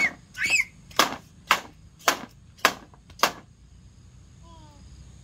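A series of about seven sharp knocks or strikes, roughly two a second, stopping after about three seconds.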